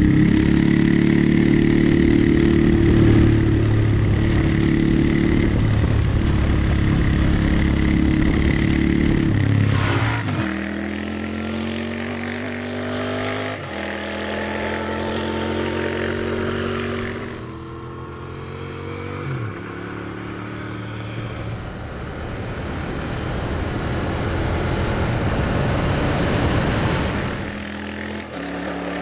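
Royal Enfield Continental GT 650's 648 cc parallel-twin engine running loud and steady under way. About ten seconds in it changes to a lighter sound, with the engine pitch rising through the gears and dropping back at shifts twice.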